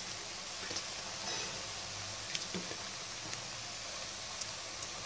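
Vegetable noodles sizzling steadily in a metal pot over a gas flame, with a few faint ticks.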